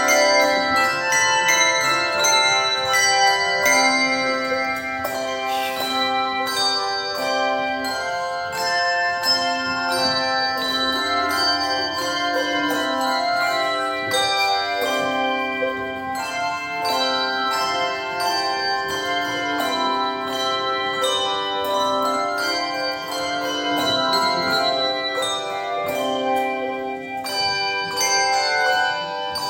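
An ensemble of tuned bells playing a piece of music: many bells struck in quick succession and left ringing, over longer, lower held notes.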